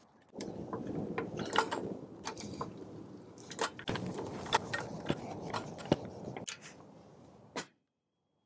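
Hydraulic floor jack being pumped to lift the Jeep Grand Cherokee: a run of rattling metallic clicks and clanks from the jack's handle and lifting arm. It stops suddenly near the end.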